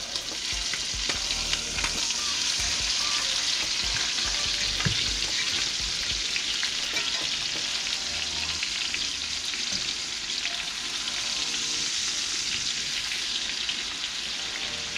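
Trout fillets sizzling steadily in melted butter in a cast-iron skillet, with occasional light clicks and scrapes of a spatula and fork as the fillets are turned.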